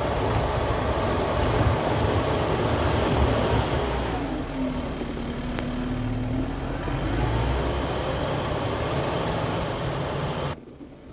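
Kubota M7060 tractor's diesel engine running steadily under work. A steady tone rises above the rumble for a couple of seconds in the middle, and the sound drops away suddenly near the end.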